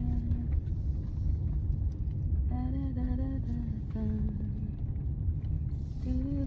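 Steady low rumble of a car driving, heard from inside the cabin, with a tune hummed over it in a few short phrases of held notes.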